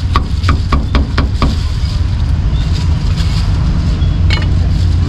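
A knife chopping grilled meat in a rapid run of strokes, about five a second, stopping after about a second and a half, with one more chop near the end. A steady low rumble runs underneath.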